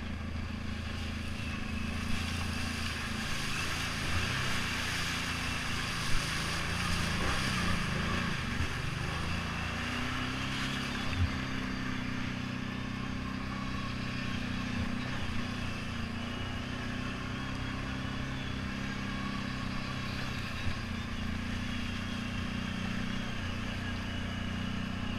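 ATV engine running steadily as the machine rides a rough trail, its pitch dipping and rising around eight seconds in. A few sharp knocks stand out over the engine, about a handful through the ride.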